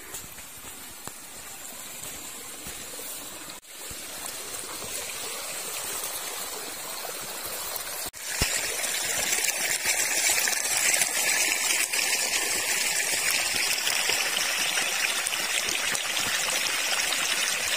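A small stream running: a steady rush of water that grows louder, stepping up sharply about eight seconds in.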